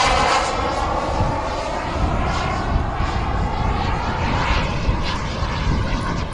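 Kingtech K-160G2 turbine of a TopRC Aspire radio-controlled jet in flight: a jet whine that falls in pitch in the first second as the model passes, then a steady rushing turbine noise as it flies on.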